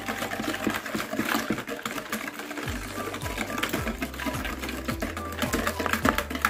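Wire balloon whisk beating eggs, melted butter and sugar in a mixing bowl: a fast, steady rattle of clicks as the wires strike the side of the bowl.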